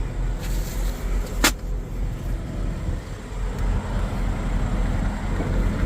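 Steady low rumble of an idling vehicle engine, with one sharp click about a second and a half in.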